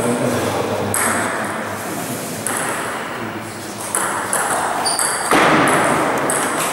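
Table tennis rally: the ping-pong ball knocking back and forth off the rubber paddles and the table top.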